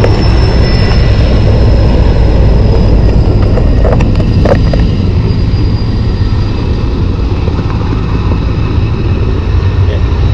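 Helicopter running with a deep, steady rotor noise and a thin, high turbine whine that slowly falls in pitch; the noise eases slightly about halfway through.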